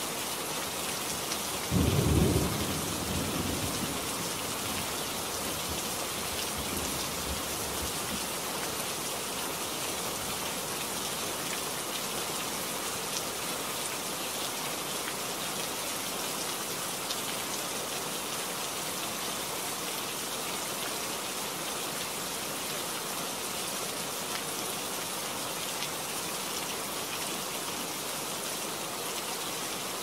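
Steady rain falling. About two seconds in, a sudden low thunderclap is the loudest sound, and it rumbles away over the next few seconds.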